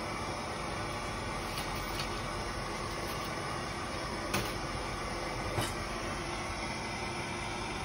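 Hand-held propane torch burning with a steady hiss. Two light clicks sound near the middle.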